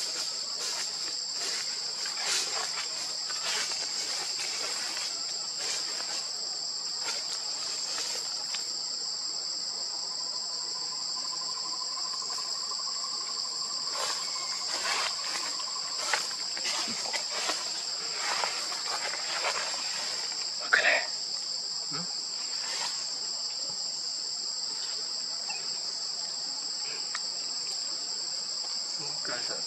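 A steady, high-pitched drone from a chorus of insects, with scattered soft clicks and rustles and one sharper knock about two-thirds of the way through.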